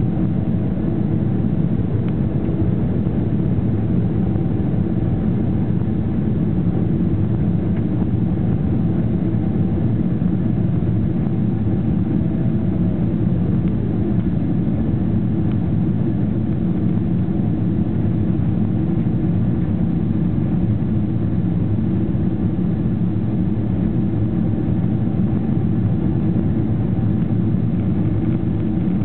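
Boeing 777-300ER's GE90-115B turbofan engines running at climb power, heard from inside the passenger cabin as a loud, steady, low rumble with a faint hum of tones above it, during the climb out just after takeoff.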